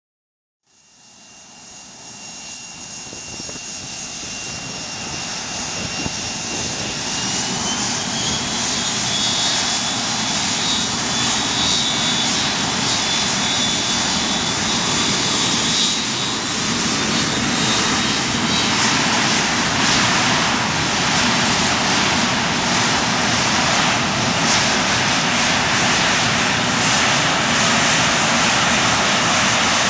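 McDonnell Douglas MD-82's two tail-mounted Pratt & Whitney JT8D turbofans spooling up to takeoff thrust. The roar fades in and builds for about ten seconds while a high whine climbs in pitch, then holds steady at full power as the jet blast sweeps the beach.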